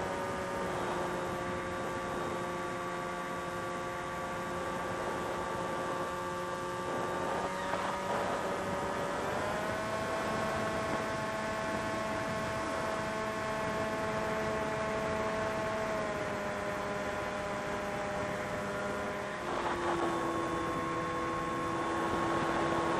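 FPV quadcopter's motors whining steadily, with several close tones that shift up and down in pitch together a few times as the throttle changes.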